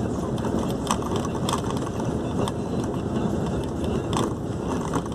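Steady engine and road noise inside a moving vehicle's cab, with a few sharp rattles at irregular moments.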